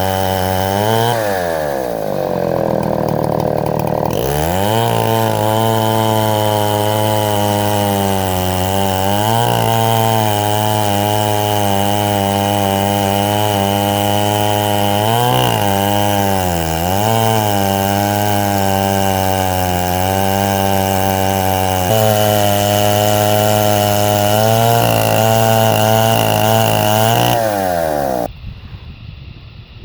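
Chinese clone of a Stihl 070 chainsaw running at high revs in an Alaskan chainsaw mill, cutting mesquite. Its engine pitch drops and recovers several times, most deeply about two seconds in, and the engine cuts off shortly before the end. The owner notes the saw is running really rich.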